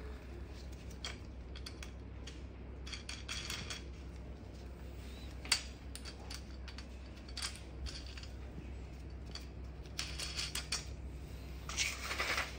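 Light, scattered clicks and rattles of a slotted metal angle bar and its bolt being handled against a plastic bracket and fastened with a star knob, with one sharper click about five seconds in.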